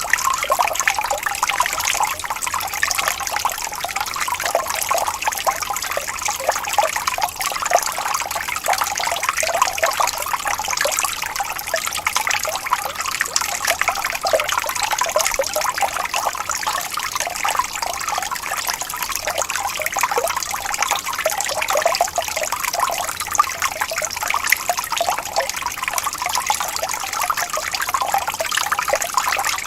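Running water trickling and splashing steadily: an unbroken stream of small quick splashes, bright and without deep rumble.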